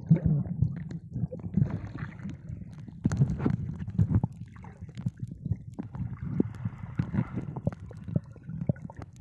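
Underwater gurgling and bubbling with a low rumble and many scattered clicks and knocks, and a soft hiss of bubbles about six seconds in.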